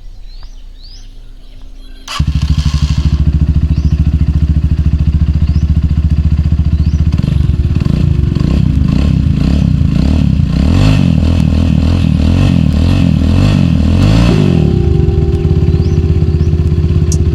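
Rusi Classic 250 motorcycle engine, fitted with a modified stock muffler, cutting in suddenly about two seconds in and running loud with an even exhaust beat. It is revved up and down several times through the middle, then settles to a steady, slightly higher idle near the end. Birds chirp faintly before the engine comes in.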